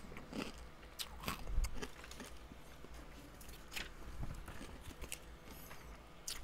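A person chewing a crunchy toasted seaweed snack close to the microphone, with irregular crisp crunches.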